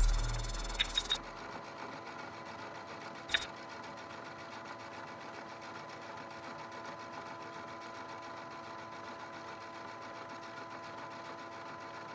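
An electronic logo sting fades out, its deep boom dying away in the first second with a few clicks. Then a faint, steady electronic hum with a few held tones, broken once by a short click about three and a half seconds in.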